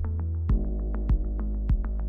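Background electronic music: a steady beat of about one hit every 0.6 s over a held low bass tone and sustained synthesizer notes.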